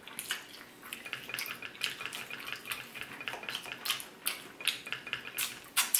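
Close-miked eating of roast chicken off the bone: an irregular run of wet chewing clicks and lip smacks, several a second.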